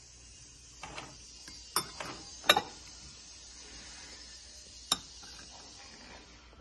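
A metal fork clinking against a ceramic bowl as it moves through shredded chicken: three sharp clinks, the loudest about two and a half seconds in, with softer scraping between.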